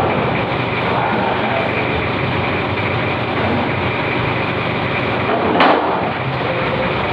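Steady loud mechanical noise, like a motor running, with a brief sharp hiss or clatter about five and a half seconds in.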